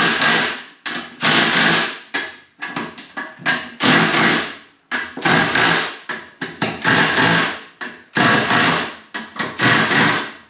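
Cordless impact wrench running down bolts on a racing wheel in about nine short bursts, each about a second long, with brief pauses between them as it moves from bolt to bolt.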